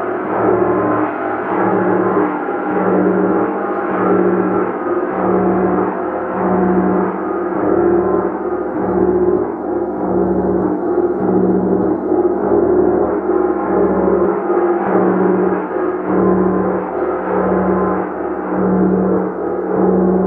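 A gong played continuously, a sustained wash of many overlapping tones. A low pulse swells about once every second and a bit, from repeated strokes keeping it ringing.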